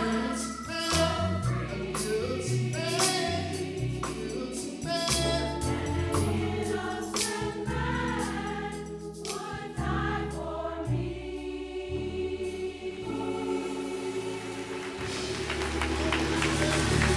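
Gospel mass choir singing with instrumental accompaniment and a steady beat; about two-thirds of the way through the beat stops and the choir and instruments hold long notes.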